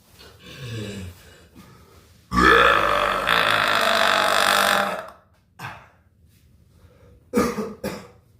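A man's long, loud burp lasting nearly three seconds, with a shorter, quieter sound from the throat before it and two short sharp sounds near the end.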